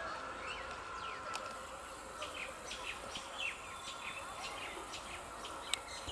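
Birds chirping in many short calls over a steady insect buzz, with a single sharp click near the end.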